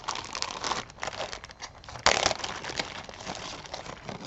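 Crinkling and rustling with many small clicks as jewelry and its wrapping are handled, with one louder crinkle about two seconds in.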